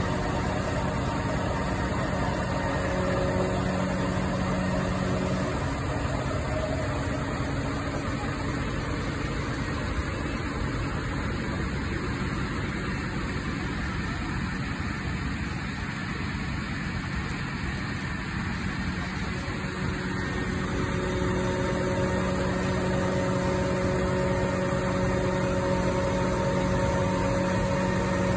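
Diesel engines of parked fire appliances running steadily, a constant engine hum that drops a little in level for a while in the middle before coming back.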